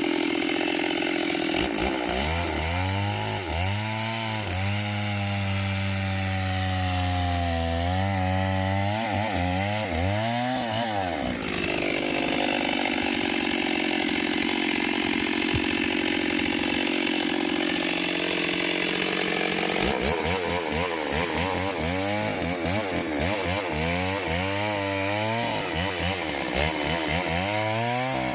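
Mini chainsaw running under load as it cuts into a thick tree trunk. Its engine pitch wavers up and down over most of the stretch, with a steadier spell in the middle.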